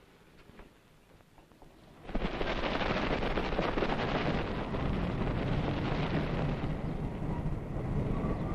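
Near silence, then about two seconds in a sudden, steady rumbling wash of outdoor street noise.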